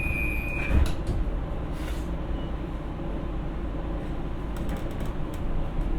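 Doors of a Siemens P2000 light rail car closing: a steady high door-warning tone stops under a second in and the doors thud shut, followed by a low steady rumble of the car with scattered sharp clicks.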